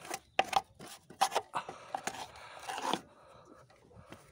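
Scraping and knocking caked wet grass clippings off the metal underside of a rotary lawnmower deck, a quick series of short scrapes for about three seconds, then quieter. The clippings are stuck fast and not yet coming loose.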